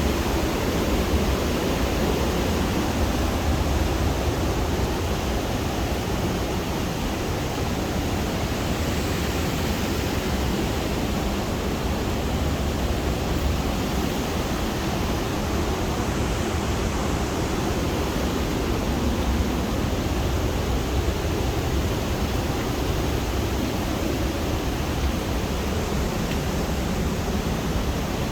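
Loud, steady roar of a waterfall in a rock gorge: a constant rush of falling water with a deep rumble underneath.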